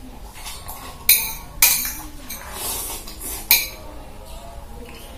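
Metal spoon clinking against a plate of fried instant noodles while eating: three sharp clinks, the second and third a couple of seconds apart, with softer scraping and eating noises between.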